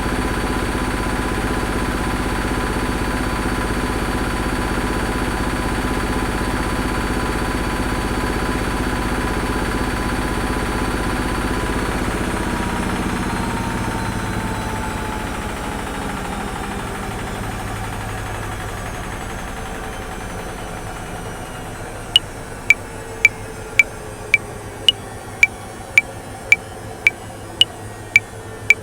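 Washing machine running with a steady hum and a rhythmic churn. About 13 s in, its motor whine slides down in pitch and the machine grows quieter as it winds down. About 22 s in, sharp metronome clicks come back in at an even 110 beats per minute.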